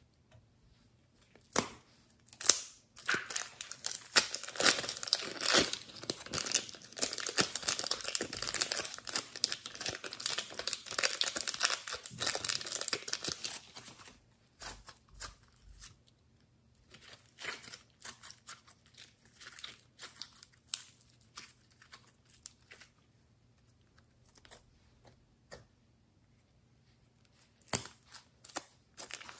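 Hands handling plastic piping bags and clay, making crinkling and crackling plastic sounds. The sound is dense from about three seconds in to about fourteen, then gives way to sparse soft crackles. Near the end, crinkling picks up again as a filled piping bag is squeezed.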